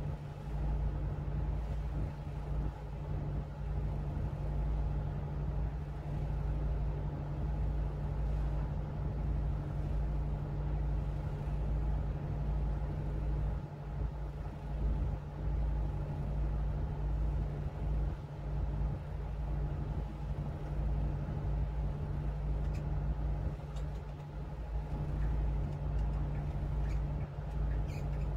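Tugboat's diesel engine running steadily, a constant low drone with a deep rumble under it.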